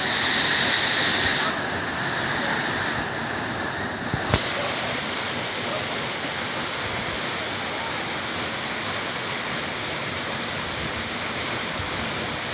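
Waterfall rushing steadily, a loud even roar of falling water. The high end turns duller for a couple of seconds before a single sharp knock about four seconds in, after which the full steady rush returns.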